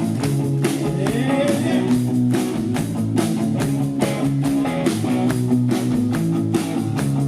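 Live rock band playing an instrumental stretch between verses: electric guitar and bass over a steady drum beat.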